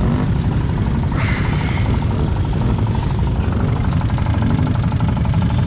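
Off-road vehicle engine idling steadily with an even low pulse, and a brief rush of noise about a second in.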